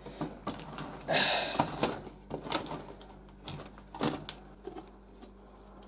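Hand-cranked tin opener cutting around the rim of a sealed metal tin money box: irregular clicks and short scrapes of the cutting wheel on the tin as the knob is turned, with a louder scrape about a second in and quieter turns toward the end.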